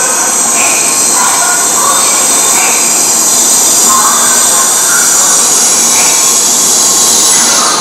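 N700-series Shinkansen train pulling slowly into the platform: a loud, steady rush of running noise, with short high squeals from the wheels and brakes now and then as it slows to stop.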